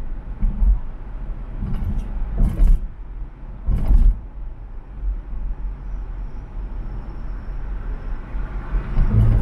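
Car driving at highway speed, heard from inside the cabin: a steady low rumble of tyre and engine noise, with a few short thumps about two to four seconds in.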